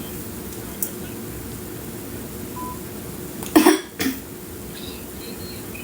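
A woman who is ill with a cough coughs twice, a loud cough about three and a half seconds in and a smaller one just after it, over a steady low hum.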